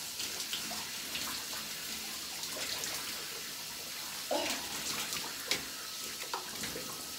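Shower spray running steadily onto a person and the tub, a continuous hiss with irregular splashes as hands work through wet hair. A short squeak about four seconds in.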